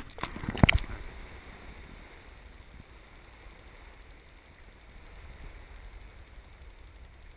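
Water splashing and knocking against a camera as it is plunged under a lake's surface, several sharp hits in the first second. Then a steady, low, muffled rumble heard from underwater.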